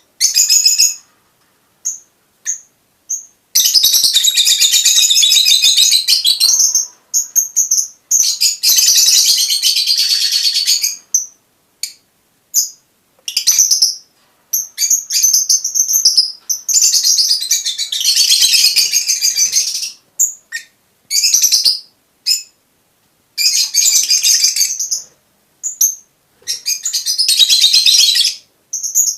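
Fischer's lovebirds chattering in high-pitched twittering bouts of a few seconds each, with brief gaps between them; a recording of breeding-season calls played to stimulate birds to mate.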